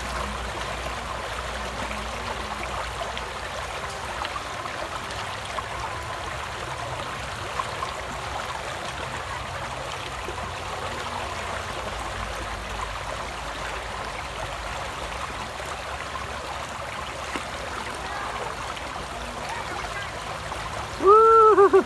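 Shallow river running over stones and gravel, a steady rushing flow. Near the end a child's voice calls out briefly.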